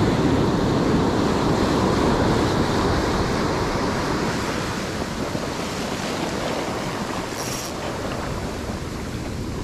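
Ocean surf washing up a sandy beach: a steady rush of breaking and receding waves that eases slightly toward the end, with some wind on the microphone.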